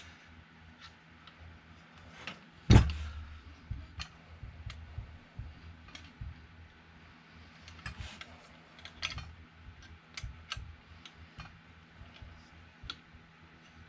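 Scattered small metal clicks and taps from a wrench and printer carriage parts being handled during adjustment, with one loud knock about three seconds in.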